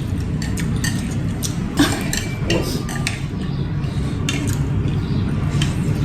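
Chopsticks clicking and scraping against a dish during eating, in many short, irregular taps with one sharper knock about two seconds in, over a steady low hum.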